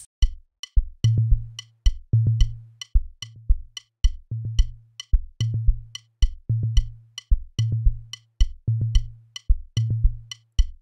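A programmed drum loop playing back from the mixing software: kick drum thumps under a steady pattern of high, clicky percussion ticks. About a second in, a deeper held low hit is switched on and recurs with the beat, the next drum sound being brought into the mix.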